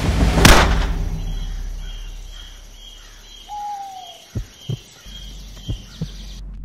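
A loud booming hit about half a second in, dying away over a couple of seconds, then forest ambience: a bird giving a repeated high chirp and one falling whistle, with a few soft thuds near the end.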